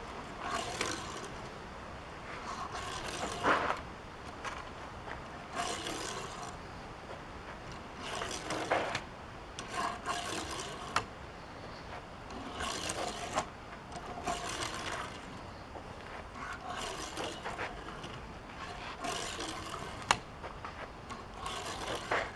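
Hot Wheels diecast toy car rolled and pushed back and forth across a hard surface, its small wheels making short rolling and scraping runs every second or two, with a sharp click about twenty seconds in.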